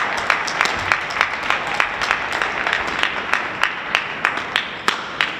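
Spectators clapping in a steady rhythm, about three claps a second, over a light haze of applause, after a point is won. The clapping dies away near the end.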